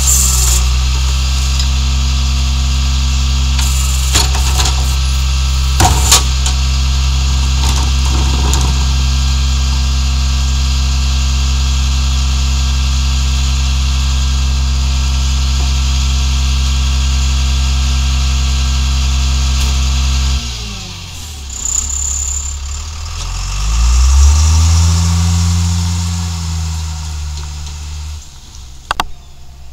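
International rear-loader garbage truck's diesel engine running steadily at raised speed to drive the hydraulics while the cart tipper dumps a cart and the New Way packer blade compacts the load, with a few sharp metallic clanks in the first several seconds. About twenty seconds in the engine note drops, then rises again as the truck pulls away, and fades out near the end.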